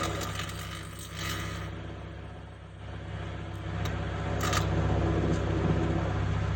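Microwave oven running with a steady electrical hum, while tinfoil inside arcs in crackling, sizzling bursts, strongest during the first second and a half and again briefly about four and a half seconds in.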